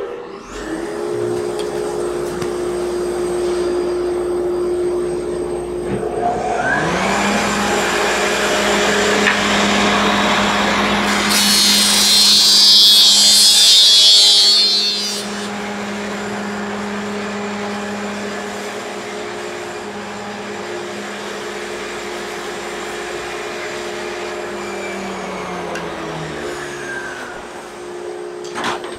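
A dust collector starts, then a Felder thickness planer's motor spins up with a rising whine about six seconds in. A thin strip of wood is fed through for about four seconds around the middle, a harsh, high cutting noise that is the loudest part, taking spline stock down another five thousandths. Near the end the motors wind down with falling tones.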